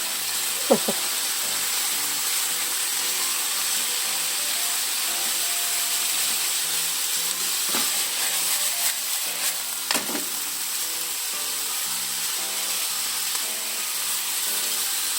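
Chicken breast, garlic and ginger frying in sesame oil in a frying pan: a steady sizzle, with a few sharp knocks against the pan, about three over the stretch.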